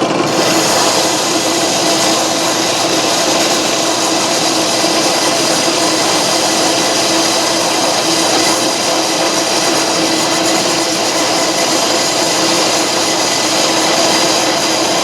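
Antique Garvin metal lathe taking a turning cut on metal stock: a steady cutting hiss over the steady hum of the running lathe. The hiss of the cut comes in right at the start.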